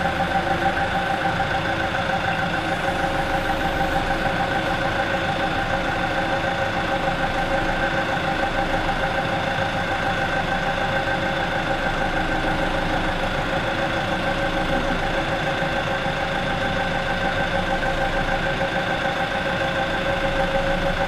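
An engine idling steadily with a constant whine over it, holding the same pitch and level throughout.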